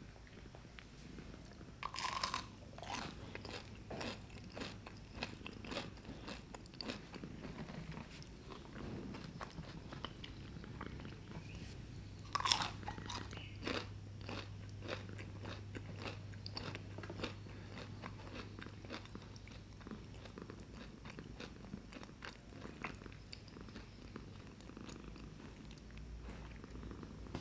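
Crisp fried churros being bitten into and chewed: two loud crunchy bites, about two seconds in and again near the middle, each followed by a long run of crunching.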